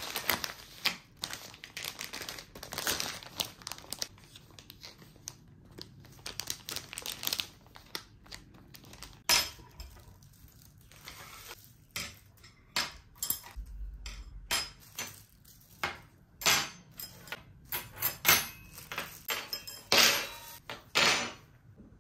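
Irregular crinkling and rustling of things being handled, broken by scattered sharp clicks and knocks, several of the loudest in the second half.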